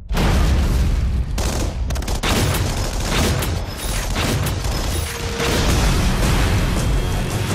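Film battle sound mix: dense rapid gunfire and explosion booms over a low rumble, with a film score underneath, cutting in suddenly at the start.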